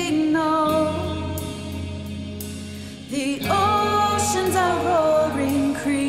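Contemporary worship song: sung vocals over band accompaniment. The music eases off and grows quieter toward the middle, then the voices come back in strongly about three and a half seconds in.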